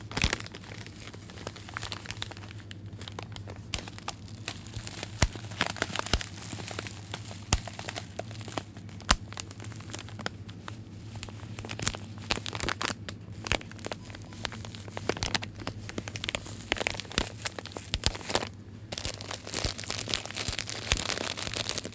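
Plastic bag being handled and crumpled: irregular crinkling and crackling, busier towards the end, over a steady low hum.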